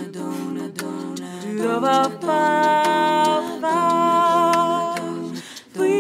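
Female a cappella group singing: a lead voice rises about two seconds in and holds long notes over hummed backing harmonies, with a brief break near the end.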